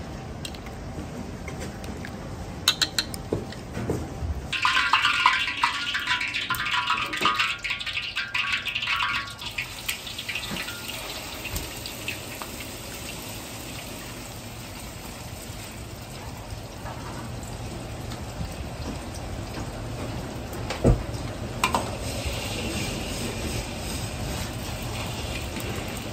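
Beaten egg poured into hot oil in a carbon-steel wok, bursting into loud sizzling and crackling about five seconds in, then settling to a quieter steady sizzle over the low running of the wok burner. A sharp clink of the ladle on the wok comes a little before the end, and the sizzle picks up again as the egg is stirred.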